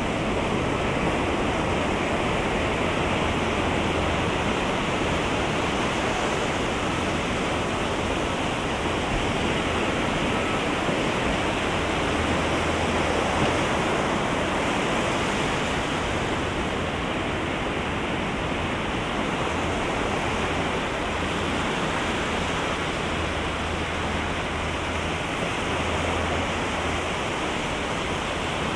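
Ocean waves breaking on the beach: a steady rush of surf with no distinct individual breakers.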